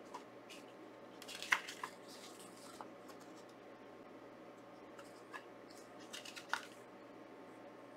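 Pages of a thick-stock paper booklet being handled and turned, rustling and crackling in two short bouts: one about a second and a half in, another a little before the end.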